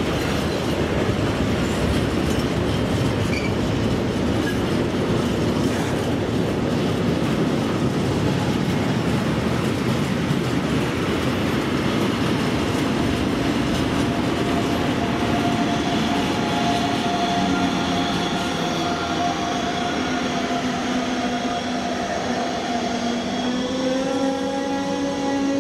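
Freight train of tank wagons rolling past on the rails with a steady clatter. From the middle onward, steady whining tones from an electric locomotive join in as a double-deck regional train pulls into the platform, and the tones step in pitch near the end.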